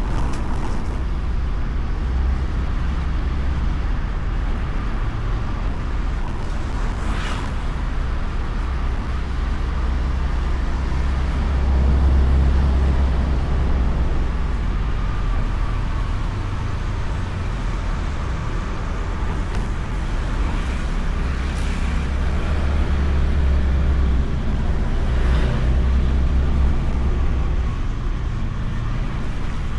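Honda Beat scooter's single-cylinder engine running under way in traffic, heard as a steady low rumble from a camera mounted on the bike, swelling a little twice.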